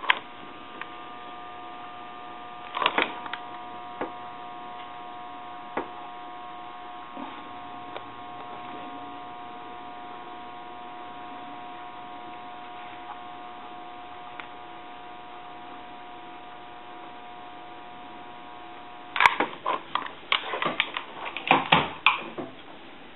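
A steady electrical hum made of several tones, which cuts off suddenly about nineteen seconds in. A few seconds of clicks and knocks from handling follow.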